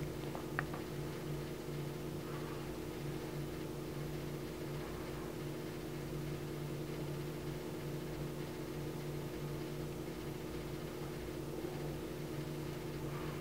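Steady electric hum with a faint rush of moving air, from a small fan motor running, most likely the incubator's forced-air fan. A single light click about half a second in.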